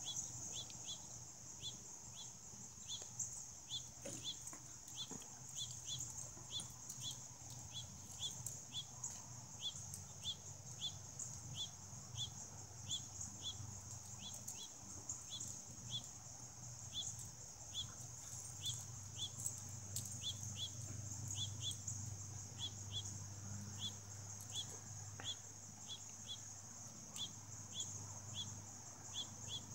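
A steady, high insect chorus, with a short chirp repeated about one and a half times a second and a low steady hum underneath.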